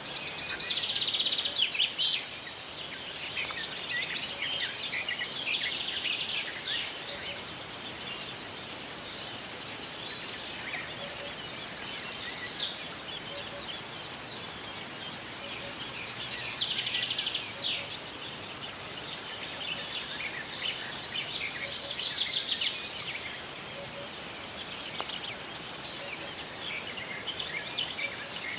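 Songbirds singing in the open: short trilled phrases repeated every few seconds over a steady background hiss, the loudest phrase near the start.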